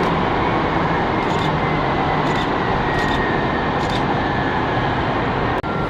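Airbus A330-200 freighter's jet engines running, a loud steady noise with a faint whine slowly falling in pitch.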